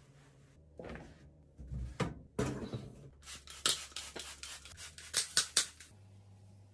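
A trigger spray bottle squirts cleaner in a rapid series of short hissing sprays, about eight in two and a half seconds, the last three loudest. Before them come rubbing and handling sounds of a microfiber cloth being worked over a washing machine's surface.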